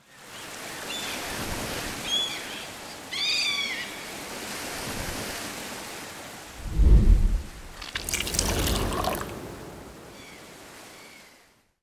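Ocean surf washing steadily, with a few short high cries over it in the first few seconds. A low thud comes about seven seconds in and a rushing splash a second later, then the sound fades out.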